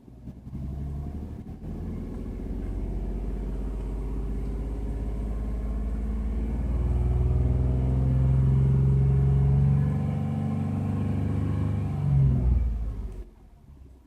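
Ford F-150's 3.5-litre Ti-VCT V6 engine running, the engine the owner is recording for a knocking noise. It grows louder about halfway through, then cuts off abruptly near the end.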